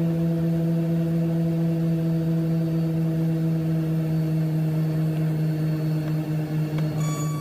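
Seaplane's propeller engines droning steadily in the cabin, a low even hum, while the plane flies low over the water. Near the end a higher beeping tone starts.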